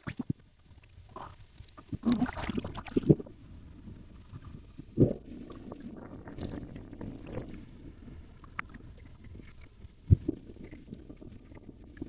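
Sea water sloshing and lapping close by, with wind on the microphone and several sharp thumps.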